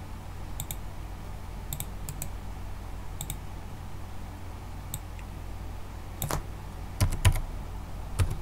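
Computer keyboard keystrokes and mouse clicks while editing code: scattered light clicks, then a cluster of louder keystrokes about six to seven seconds in, over a steady low hum.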